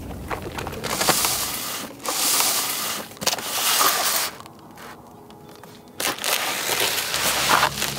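Cardboard shipping box and its plastic packaging being handled and opened: crinkling, scraping and rustling in spells, with a short pause about halfway through.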